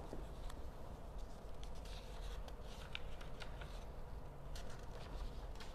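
Sheets of paper being handled and shuffled on a tabletop: light rustling with small scattered ticks and taps, over a low steady hum.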